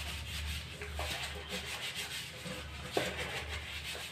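Plastic storage jar scrubbed by hand: a steady scratchy rubbing, with a light knock about a second in and another about three seconds in.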